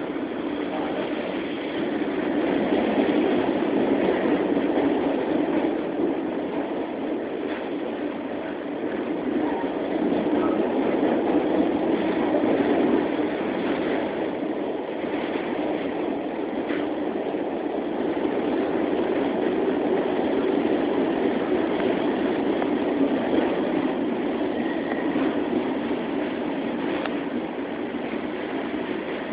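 New York City subway train running on elevated track, heard from inside the car: a steady rumble of wheels and running gear that swells and eases, louder for a few seconds early on and again around the middle.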